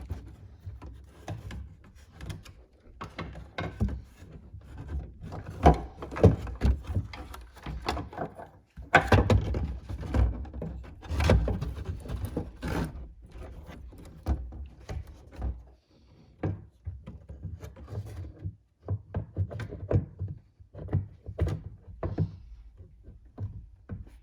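Irregular knocks, taps and thumps of hard plastic parts being handled as a replacement taillight is fitted into a car's rear quarter, with a few louder thumps in the middle.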